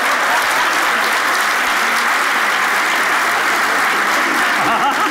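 Studio theatre audience applauding: a steady wash of clapping that holds at one level throughout.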